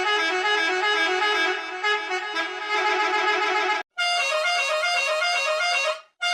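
Musical bus horn playing a quick tune of stepping notes. It breaks off just before four seconds in, and a different version of the tune starts.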